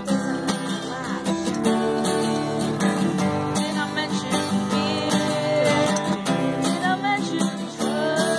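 Acoustic guitar strummed in a steady rhythm, with a young man's voice singing over it, the sung line clearest toward the middle and again near the end.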